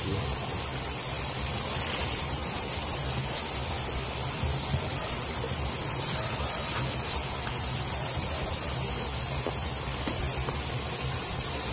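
Steady rushing of flowing stream water, with two faint knocks about five and six seconds in.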